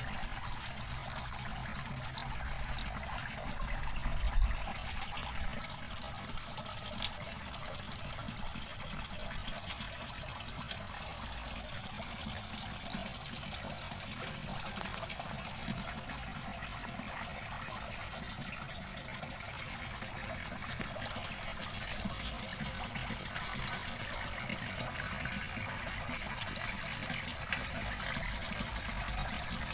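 Water running and trickling steadily through the pipes of a hydroponic growing system. There is a brief low thump about four seconds in.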